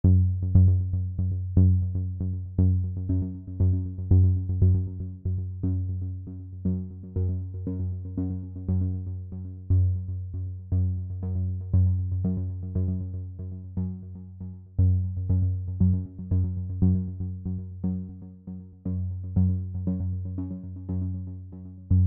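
Background electronic music with a steady beat: struck notes decaying about twice a second over a deep, steady bass.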